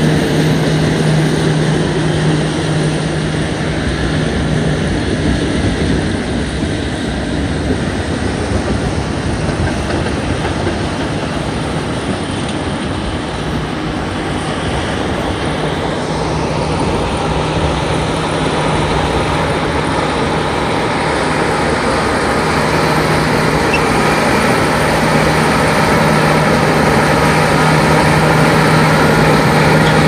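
Bulldozer's diesel engine running steadily, a low hum that drops away for several seconds in the middle and comes back, over a constant rush of surf and slurry water. Slightly louder toward the end.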